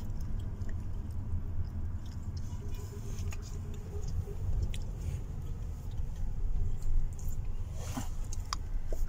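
Inside a car cabin while driving slowly: the low, steady rumble of the engine and tyres, with scattered small clicks and taps and a brief rustle about eight seconds in.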